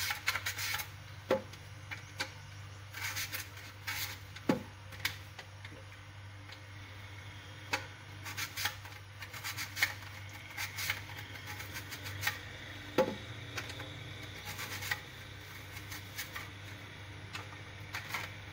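A potato being slid back and forth over a mandoline slicer's blade: irregular scraping strokes with sharp clicks, over a steady low hum.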